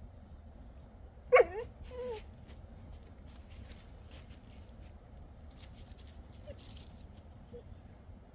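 Dog giving a loud, short whining yelp about a second in, followed by a shorter, softer whine. Faint rustling follows.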